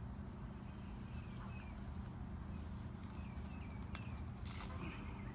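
Outdoor ambience: a steady low rumble with small birds chirping now and then, a few light clicks, and a brief rustle about four and a half seconds in.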